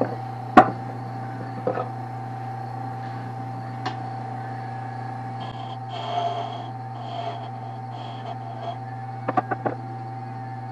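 Wood lathe running with a steady hum and whine while a turning tool shapes a small wooden peg, with scraping patches of cutting. Several sharp knocks: one loud one near the start, and a quick cluster of three or four near the end.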